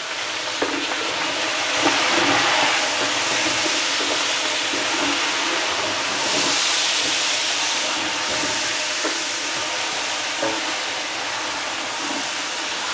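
Chopped tomatoes sizzling in hot oil with fried onions in a large aluminium pot, stirred with a wooden spoon that scrapes and now and then knocks against the pot.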